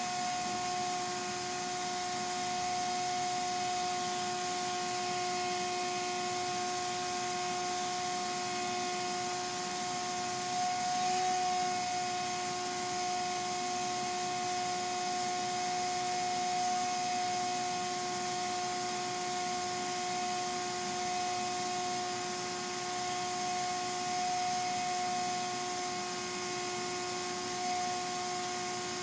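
Steady machine hum: a constant whine that holds one pitch over an even hiss, with no knocks or changes.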